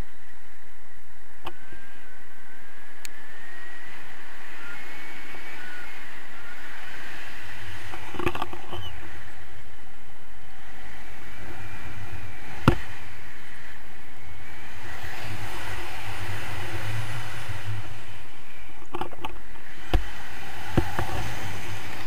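Steady wind rushing over an action camera's microphone in flight under a paraglider, with a faint wavering whistle. A few sharp knocks from handling the camera pole, the loudest about halfway through and another near the end.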